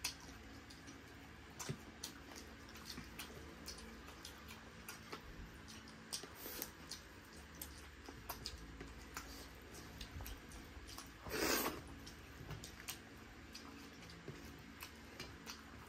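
Faint eating sounds: chewing, with many small scattered clicks and smacks, and one louder brief noisy sound about eleven seconds in.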